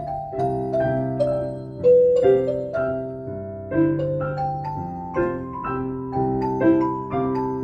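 Instrumental music: a keyboard in a piano sound playing a slow melody over chords, each note struck and dying away.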